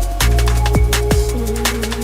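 Electronic drum-and-bass music with a fast beat of kick drums and hi-hats over held synth tones.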